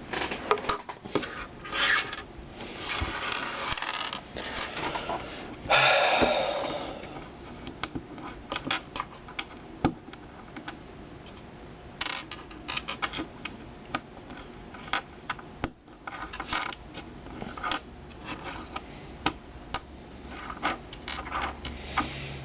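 Small plastic LEGO pieces clicking and scraping as they are handled, with a louder rattling rummage through loose bricks in the first several seconds and scattered sharp clicks after.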